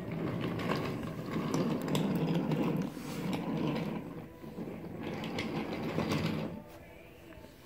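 Motorized toy train running over wooden track: a steady motor buzz with wheel rattle and clicking over the track joints, stopping about six and a half seconds in.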